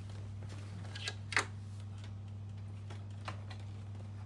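Plastic dashboard of a Porsche Cayman S clicking as it is wiggled and pulled against its mounting clips, still held on the side whose trim has not been removed: a few sharp clicks, the loudest about a second and a half in, over a steady low hum.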